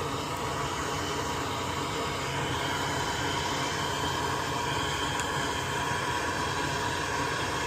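Steady, even fan-like hiss of moving air with a few faint steady tones in it, with no clicks or knocks.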